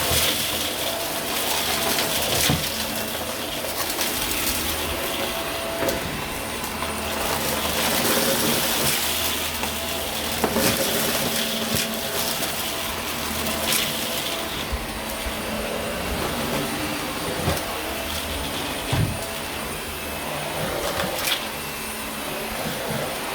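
A Dyson vacuum cleaner running steadily over carpet with a high whine, with a few sharp clicks along the way.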